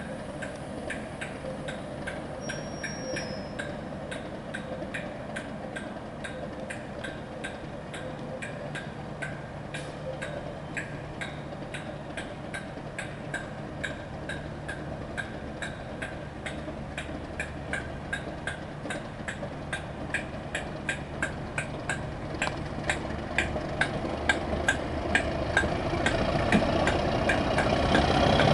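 Class 37 diesel locomotive's English Electric V12 engine running as the train pulls away slowly, a low steady hum that grows louder near the end as the train comes closer. A regular sharp ticking, about twice a second, runs over it.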